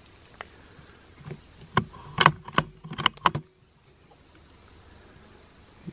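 Suppressed .22 LR bolt-action rifle (Savage FVSR with a Dead Air Mask suppressor) firing at a squirrel. A quick run of sharp clicks and knocks comes from the shot and the bolt being worked, loudest about two seconds in, and the shot lands.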